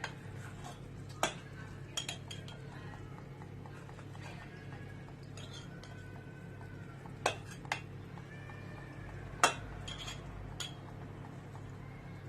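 A utensil clinking against glass and kitchenware, about six separate sharp clinks with the loudest near the end, as cooked figs and garlic are transferred into a glass bottle. A steady low hum runs underneath.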